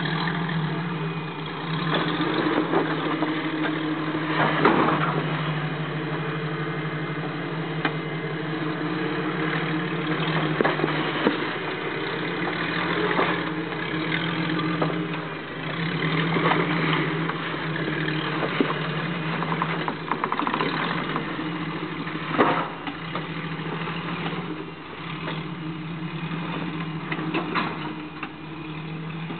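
Jeep CJ-7 engine running at low revs as it crawls slowly over rocks, with a few sharp knocks, the loudest about 5 and 22 seconds in.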